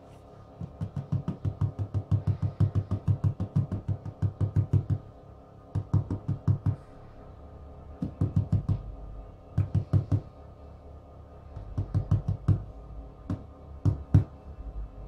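Quick runs of dull knocks, about five a second, starting and stopping several times, as flour is tapped out into the Thermomix TM5 mixing bowl while it is weighed. Steady background music plays underneath.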